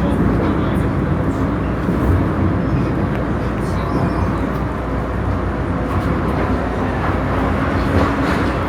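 MTR M-train electric multiple unit running, heard from inside the car: a steady rumble of wheels on rail and traction equipment, with faint steady low tones.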